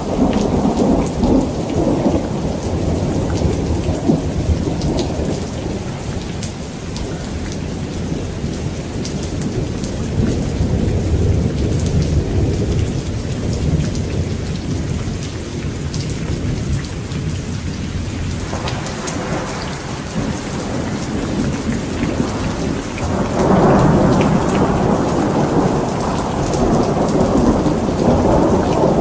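Steady rain falling, with thunder rumbling on and off: a deep low rumble in the middle and a louder, fuller roll of thunder starting about three-quarters of the way through.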